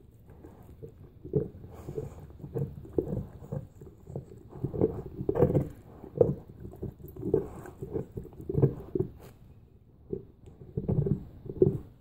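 Large mastiff-type dog gnawing and licking a hollow bone: irregular crunches and knocks of teeth against bone, coming in clusters every second or so.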